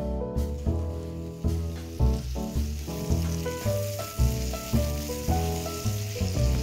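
Sliced onions, tomato and curry leaves sizzling in oil in a non-stick kadai while a spatula stirs them. The sizzle starts about a second and a half in. Background music with struck notes plays underneath.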